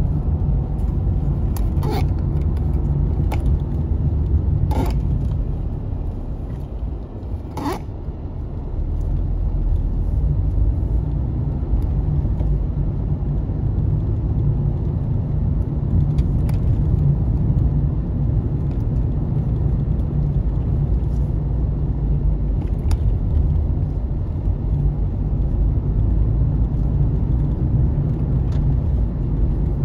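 Car driving along a road: a steady low rumble of engine and tyres that eases briefly about seven seconds in. A few sharp knocks come in the first eight seconds.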